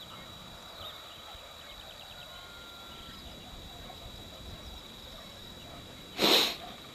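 Open-air background with a thin steady high whine and a few faint chirps, then a short, loud burst of hiss about six seconds in.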